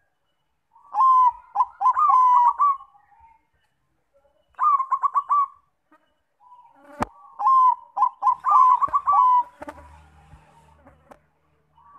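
Zebra dove (perkutut) song: three bursts of quick, stuttering cooing notes, with a single sharp click just before the third burst.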